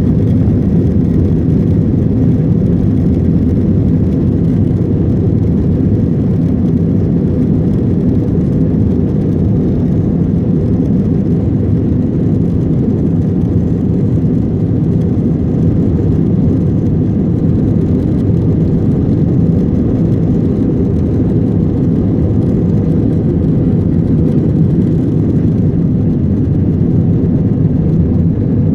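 Airliner taking off: a steady, loud low rumble of engines and rushing air that neither rises nor falls.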